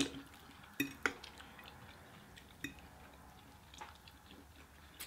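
Quiet eating sounds: about five faint, scattered clicks and clinks of utensils against takeout food containers.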